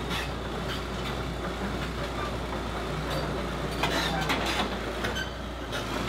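1986 Liebherr R942HD excavator's Deutz diesel engine running steadily as the machine tracks off the semi trailer onto the road, with clanks from the steel tracks and trailer deck, a cluster of them about four seconds in.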